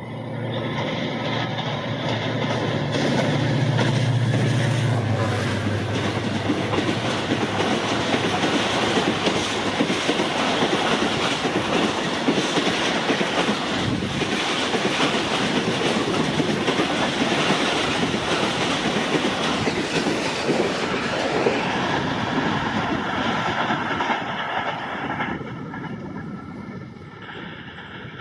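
Train passing close by: an HGMU-30 diesel-electric locomotive's engine is heard over the first few seconds, then the wheels of the coaches clatter over the rail joints for about twenty seconds and fade near the end.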